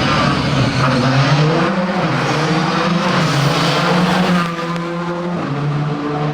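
Rally car running a special stage at full throttle, its engine note climbing and stepping with gear changes, loudest in the middle, then dropping to a lower, quieter note about four and a half seconds in.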